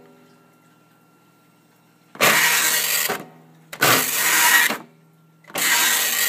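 TRS-80 Line Printer V's print-head carriage driving across three times, each run a loud mechanical rush of about a second, over the printer's faint steady hum. The owner takes this to be the head travelling too far and hitting its end stops, which he puts down to a dirty limit switch.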